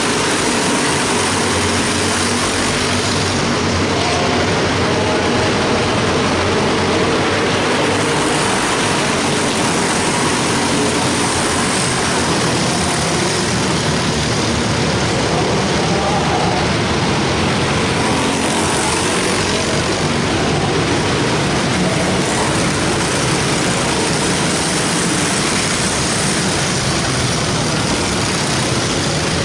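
Small race-car engines running at speed as a field of junior race cars laps an indoor oval, making a continuous engine drone that echoes around the arena.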